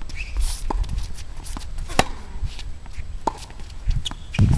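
Tennis ball struck by rackets and bouncing on a hard court during a baseline rally: a series of sharp pops a second or so apart.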